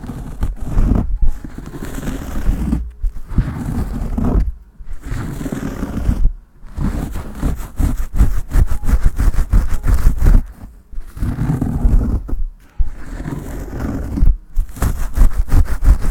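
Foam-covered gloved hands squishing and rubbing lather right against the microphone: dense, crackly rubbing that stops briefly every couple of seconds.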